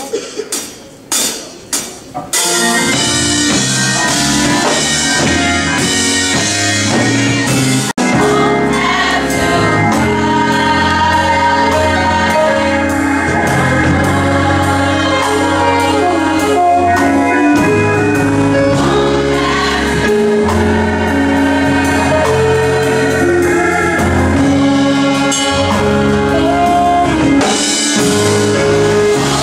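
Gospel group singing in choir style with a full backing band. A few sharp band hits open it, then voices and band come in together about two seconds in and run on.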